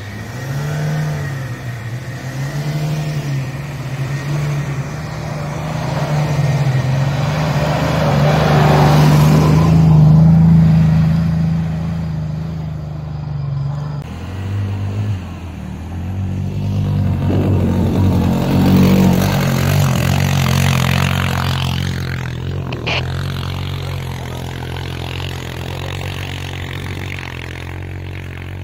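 Pickup truck engines revving hard under load while pushing through deep snow, the note rising and falling with the throttle. It starts with a Ford Ranger; about halfway through there is a sudden change to a Mitsubishi L200, which revs up again.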